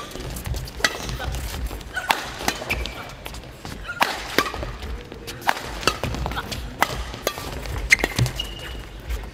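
Badminton rally: rackets striking the shuttlecock in a quick succession of sharp hits, one every half second to a second, with a couple of short squeaks of shoes on the court.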